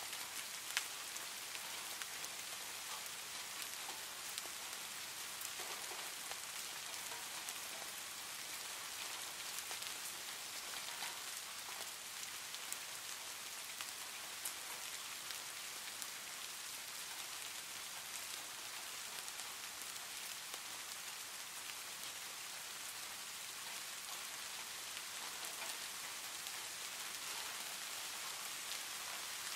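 Steady rain, an even hiss of falling rain with scattered drop patter, with a sharp click about a second in and a few fainter ticks.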